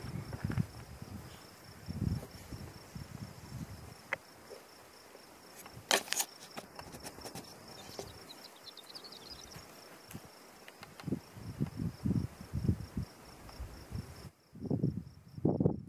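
Horned lark singing faintly: a brief high tinkling trill about eight to nine seconds in. Under it runs a steady high-pitched pulsing buzz, with repeated low rumbles that are the loudest sounds.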